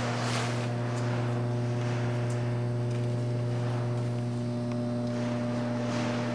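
Steady low electrical mains hum with a row of evenly spaced higher overtones, with irregular swells of shuffling noise over it.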